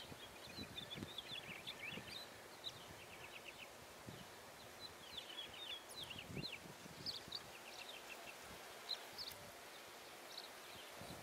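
Faint outdoor ambience with birds chirping: scattered runs of short, high chirps throughout.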